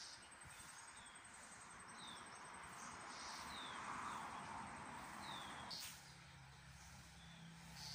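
Faint outdoor ambience: a bird repeating short, falling high chirps every second or so. A rushing noise swells in the middle and cuts off about six seconds in, after which a low steady hum takes over, with a few light clicks.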